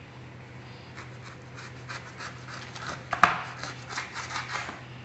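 A kitchen knife sawing through the thick rind of a vadukappuli (wild lemon) on a plastic cutting board, in short rasping strokes that grow louder, with one sharp knock a little past three seconds in.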